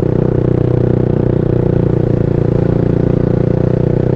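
Suzuki Raider J underbone motorcycle with an open VMAX muffler running steadily under load on an uphill climb, heard from the rider's helmet, with a steady engine note.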